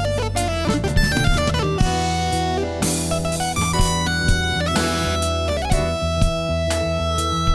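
Live band playing a grooving instrumental: guitar over a drum kit, with regular drum hits and a long held note from about five seconds in.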